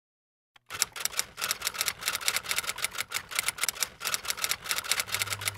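Typewriter keys striking in a rapid, even run of clacks, about seven a second, starting just under a second in.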